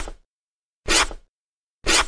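Squeegee-wipe sound effects: short swishing strokes, about one a second.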